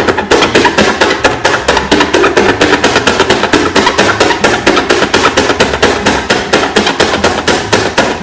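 A rapid, even series of sharp knocks, about six a second.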